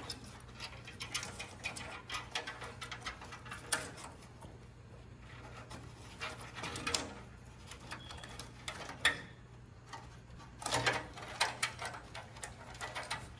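Hands handling a fan cable and case parts: irregular rustling and small plastic clicks, with a faint steady hum underneath.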